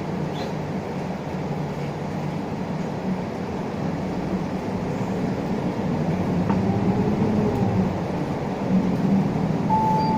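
Isuzu Erga LV290 city bus running, heard from inside the cabin: its four-cylinder turbo diesel and road noise, growing a little louder in the second half. A short steady beep sounds near the end.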